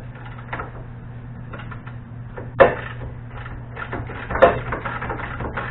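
Irregular clicks, clanks and knocks of hand tools and metal car parts being handled during an engine removal, with two louder knocks about two and a half and four and a half seconds in, over a steady low hum.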